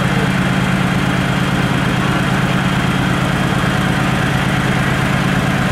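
Heavy military truck engine idling steadily.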